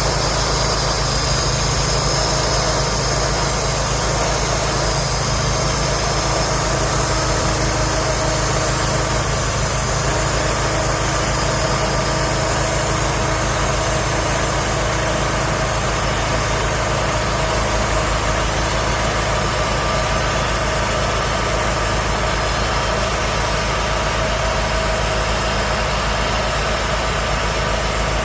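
An engine running steadily at an even pitch, in keeping with the Wood-Mizer LT35 band sawmill's engine.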